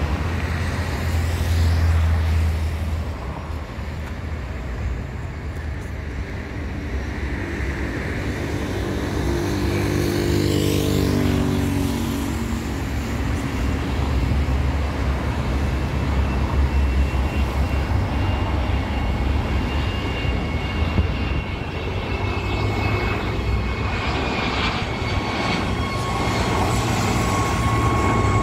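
Boeing 737-400F's CFM56 jet engines on final approach, getting closer, over a steady road-traffic rumble, with a vehicle passing about ten seconds in. In the last few seconds, as the freighter nears overhead, a steady high engine whine in several tones comes in.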